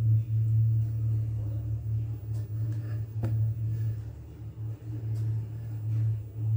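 A steady low hum that wavers slightly in loudness, with a single sharp click about three seconds in.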